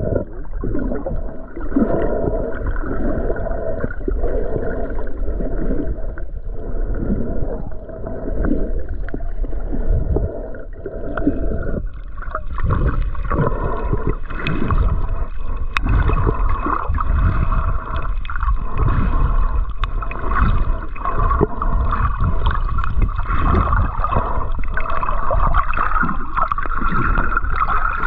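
Sea water sloshing and gurgling against a camera at or under the surface, muffled, in uneven surges. The sound turns brighter and hissier about twelve seconds in.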